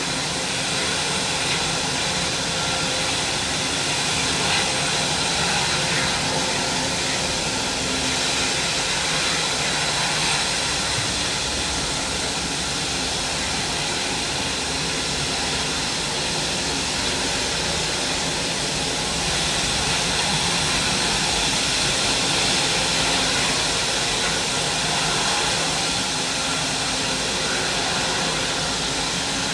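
Boeing 777-200ER's twin turbofan engines running steadily as the jet taxis slowly away: a continuous rush with a faint steady whine in it.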